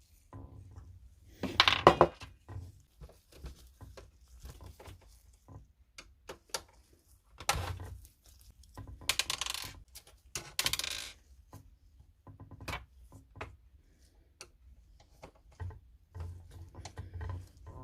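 Parts from a disassembled printer being handled and set down: irregular clinks and rattles of small metal and plastic pieces, with the loudest clatter about two seconds in and more bursts of rattling around the middle.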